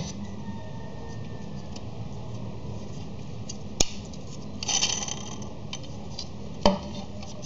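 Snap-together plastic construction-kit parts (gears and frame beams) handled and fitted together: a sharp click about four seconds in, a short clatter a second later, and another click near the end, over steady low room noise.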